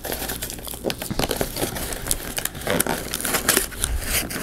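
Cardboard shipping box being pried and torn open by hand: a dense run of crackles, creaks and tearing of cardboard.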